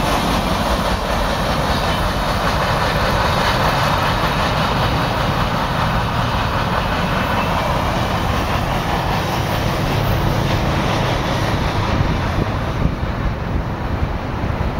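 Freight train cars rolling past on the rails, a steady rumble whose higher part fades over the last few seconds as the end of the train moves away.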